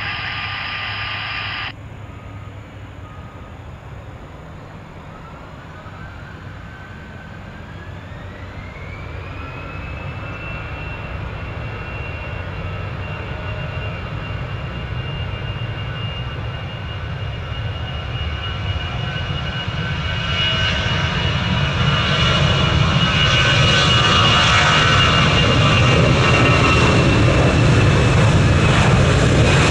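Jet airliner engines spooling up: a whine rises in pitch over a few seconds and then holds steady at takeoff thrust, while a low rumble and rushing roar build steadily louder.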